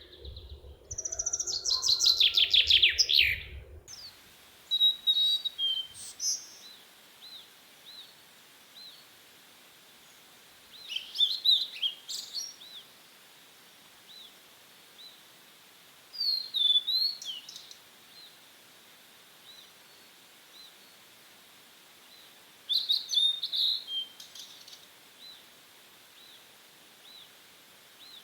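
Songbirds singing. For the first four seconds a loud, fast run of high notes sounds, and it stops suddenly. After that, short bursts of chirping song come about every six seconds over a faint high note that repeats steadily.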